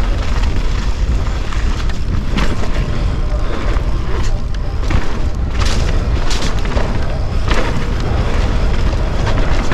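Wind buffeting the microphone of a camera on a mountain bike ridden fast down a dirt trail, over steady tyre noise on the dirt. Several sharp clatters of the bike rattling over bumps stand out, most of them in the middle stretch.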